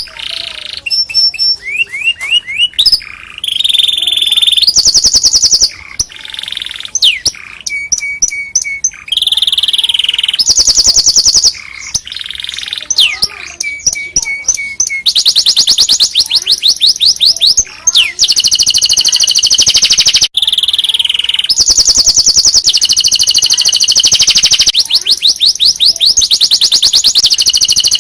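Domestic canary singing continuously: fast trills of rapidly repeated notes, each held a second or two before switching to another trill, with quick rising and falling whistled notes in between.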